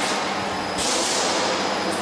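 Resistance seam welder on a pressed-steel transformer radiator production line, its copper wheel electrodes welding sheet steel: a steady hum over dense machine noise. A burst of hiss comes about a second in and lasts about a second.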